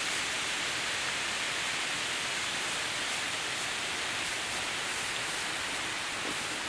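Hiilawe Falls pouring down a cliff face and spattering into the plunge pool below: a steady, even rushing hiss.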